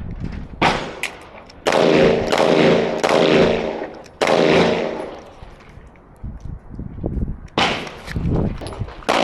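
Gunfire: a string of shots at an irregular pace, each ringing on for about half a second, with a pause of about three seconds before firing resumes near the end.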